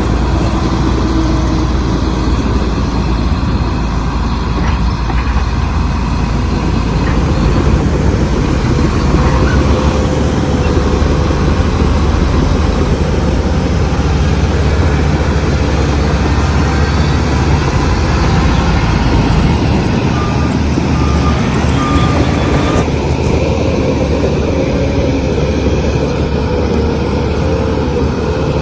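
Heavy machinery diesel engine running steadily at a loud, constant level, with a strong low rumble.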